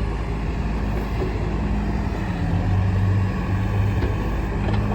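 2006 Case 580 Super M backhoe loader's 95-horsepower turbo diesel engine running steadily while the hoe's hydraulics are worked, its note shifting slightly about halfway through.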